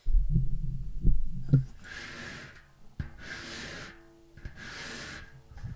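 Close-up rumble and a few knocks on the microphone, then three breathy hissing bursts spaced about a second and a half apart.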